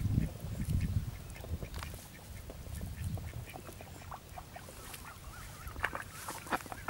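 Cast net being handled on grass, with soft rustling as fish are picked from the mesh. There is low rumbling noise in the first second and again a few seconds in, and a few short animal calls near the end.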